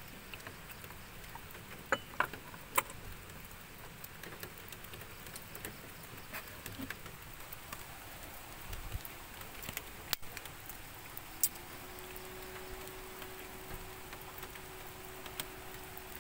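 Light rain pattering, with scattered drips and small ticks on nearby surfaces. A faint steady hum comes in during the last few seconds.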